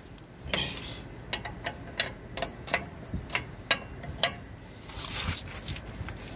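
Sharp metallic clicks and ticks, irregular, about two or three a second, from a lug wrench and the lug nuts of a steel car wheel as the nuts are worked loose.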